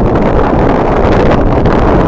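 Strong wind buffeting the microphone: a loud, gusty rumble that flutters rapidly without letting up.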